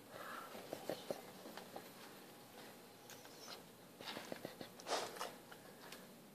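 Faint noises of a sleeping, dreaming pet: small clicks and snuffles, with a louder breathy burst just before five seconds in.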